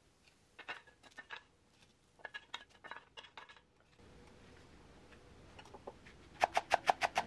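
Scattered light clicks and taps of a wooden spatula on a metal wire cooling rack holding fried pancakes. From about four seconds in there is a faint steady hiss, and near the end comes a fast, even run of knife strikes on a wooden cutting board, about seven a second, chopping chives.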